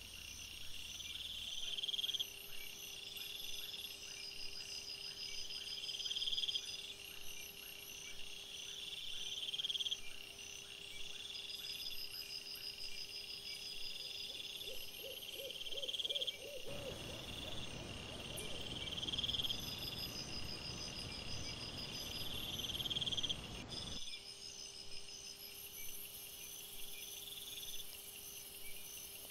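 Crickets calling: a buzzy chirp repeats about every two seconds over fainter, higher trills. For several seconds in the middle a low, even hiss lies under them.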